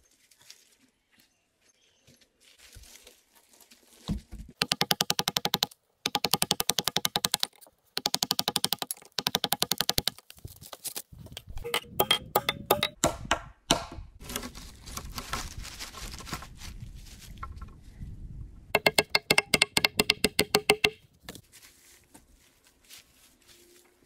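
Hammer driving a nail into a log: four fast runs of sharp knocks, with scattered irregular knocks between them.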